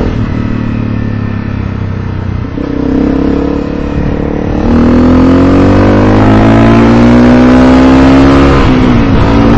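Motorcycle engine running while ridden, pulling harder about halfway through with the pitch slowly rising, then easing off near the end.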